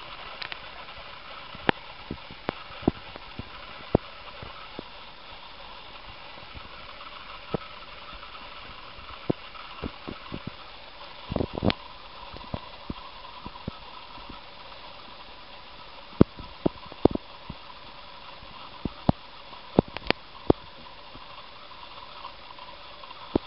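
A hamster gnawing at a monkey nut: irregular sharp cracks and clicks of peanut shell, coming in small clusters, over a steady hiss.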